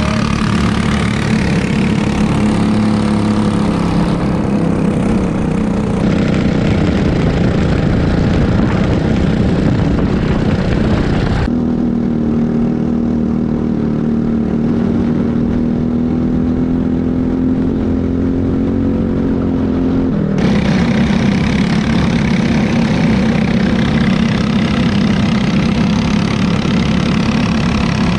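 Kart engines running: the Briggs & Stratton LO206 single-cylinder four-stroke of the onboard kart with other karts around it. For several seconds in the middle the sound turns duller and steadier, with a hum that slowly rises and falls in pitch, then the fuller engine sound returns.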